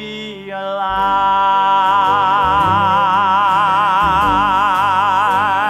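A male singer holds one long high note with a wide vibrato, starting about a second in, over a band accompaniment with a moving bass line.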